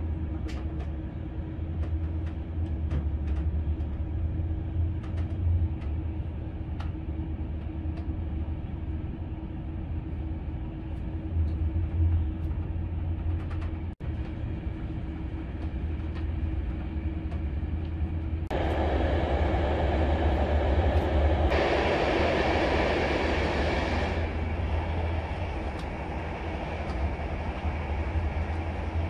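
Passenger train running, heard from inside the carriage: a steady low rumble with a faint hum and light clicks in the first few seconds. About two-thirds of the way through, a louder rushing noise comes in for several seconds, then eases.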